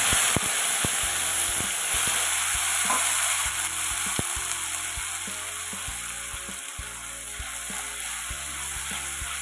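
Wet onion, garlic, ginger and green chilli paste sizzling in hot oil in a kadhai, loudest as it goes in and dying down gradually. Scattered small pops and a wooden spatula stirring the paste toward the end.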